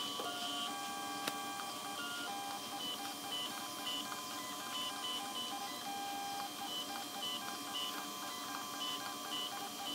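Creality CR-6 SE 3D printer's stepper motors whining in short, stepped tones that switch on and off and change pitch as the print head moves from point to point during automatic bed leveling.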